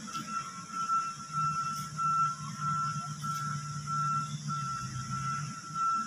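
Heavy earthmoving machine's reversing alarm beeping, about two beeps a second, over the low drone of an engine running.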